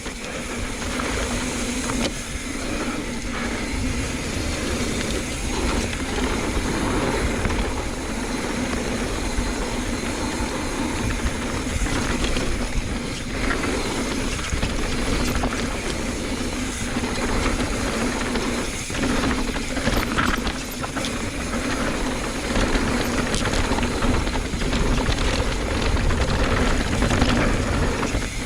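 Mountain bike descending a rough dirt trail at speed: steady wind rush on the microphone and tyre rumble, with scattered rattles and knocks from the bike over bumps.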